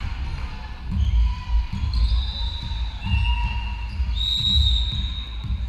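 Repeated dull thuds of a volleyball and players' feet on a hardwood gym court, with a few drawn-out high squeals over them about two, three and four seconds in.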